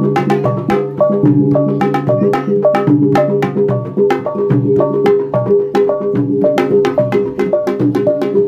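Bugis paggarang ensemble playing: two-headed barrel drums beaten with sticks and hands in a fast, steady pattern of about five strokes a second, over the sustained ringing of a large hanging gong.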